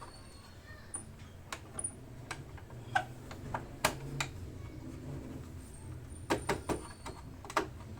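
Irregular sharp clicks and knocks of hard plastic motorcycle fairing parts being handled and fitted, bunched around the middle and again about six seconds in, over a faint low hum.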